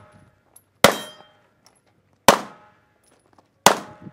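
Three pistol shots from a semi-automatic service pistol, evenly spaced about a second and a half apart, each a sharp crack with a short ringing tail.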